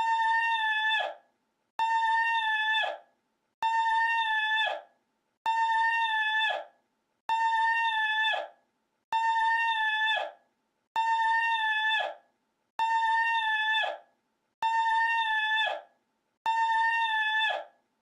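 A looped recording of one high, held vocal cry, repeated identically about every 1.8 seconds. Each cry holds one steady pitch for about a second, then drops away at the end. It comes about ten times, with short silences between.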